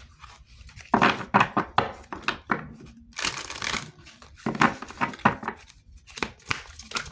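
Cards being shuffled and handled: several bursts of rustling with sharp slaps and clicks.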